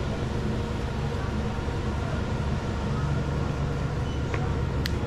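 Steady low hum and rumble of a convenience store's background noise, with a few faint clicks about four and five seconds in.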